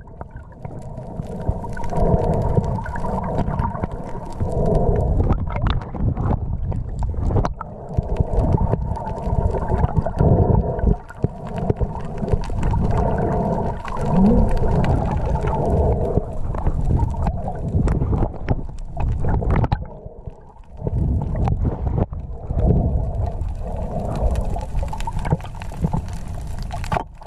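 Underwater sound picked up by an action camera in its waterproof housing: a low muffled rumble of moving water with a wavering hum and scattered sharp clicks.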